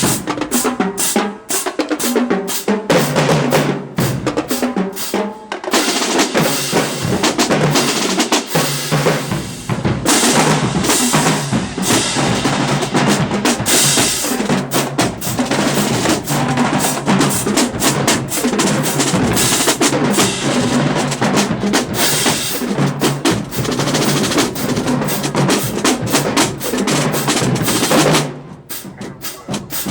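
Marching band playing, its drums prominent, with a short drop in level just before the end.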